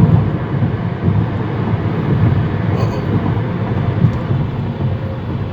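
Steady road and engine rumble inside a moving car's cabin, with one small click about four seconds in.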